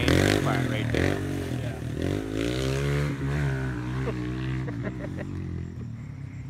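Off-road vehicle engine running and revving, its pitch rising and falling, fading over the last couple of seconds.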